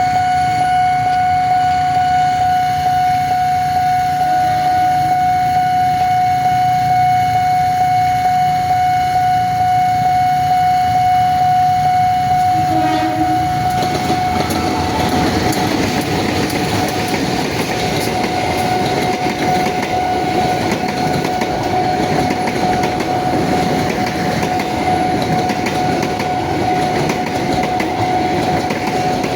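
Level-crossing warning siren sounding one steady tone. From about halfway, a train passes over the crossing with its wheels clattering on the rails.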